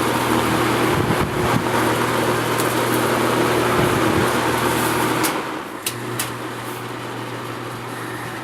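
Edison two-speed 20-inch five-blade plastic box fan running, its motor humming under the rush of air. About five seconds in it drops to a quieter, lower speed, with a few clicks as it changes.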